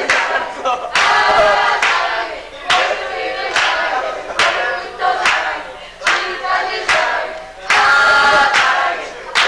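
A group of teenage girls singing a praise song loudly together, with a sharp accent on the beat about once a second.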